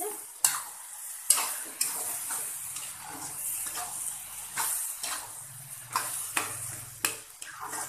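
A flat spatula stirring and turning a thick, nearly cooked curry of colocasia greens and chicken in a wok: about ten irregular scrapes and taps against the pan over a steady frying sizzle.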